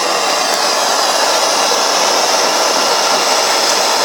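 Gas blowtorch flame burning with a steady, loud hiss while it heats a brass cylinder toward silver-soldering temperature.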